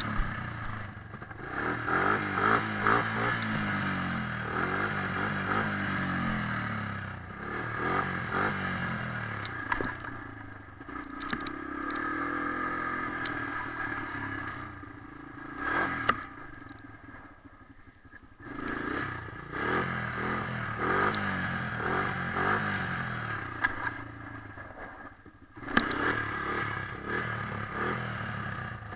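Honda TRX250 ATV engine being ridden hard, its pitch rising and falling as it revs up and eases off again and again. Three times the engine sound drops away briefly, and a few sharp knocks and clatter from the machine come through.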